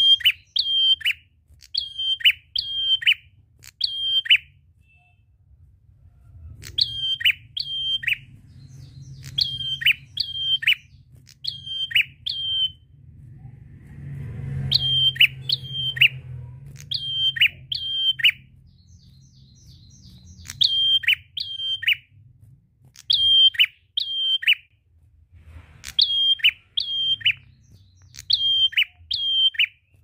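Caged prenjak, a rufous-headed tailorbird, singing its loud repetitive call: sharp notes that drop in pitch, given in quick pairs and threes, with short pauses between bursts.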